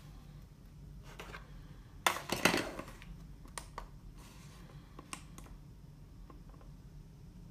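Hands handling a smartphone over its cardboard box and plastic packaging: a brief rustle and scrape about two seconds in, then a few light clicks and taps.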